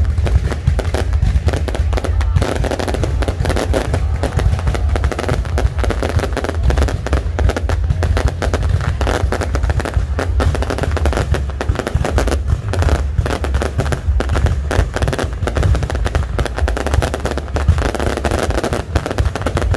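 Fireworks display in a continuous barrage: dense, rapid bangs and crackling over a heavy low rumble that never lets up.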